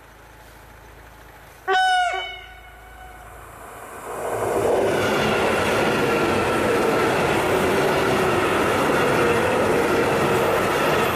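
Two coupled EN57AKM electric multiple units sound one short horn blast about two seconds in. From about four seconds in they pass close by at speed, a loud steady rush of wheels on rail with a steady whine running through it.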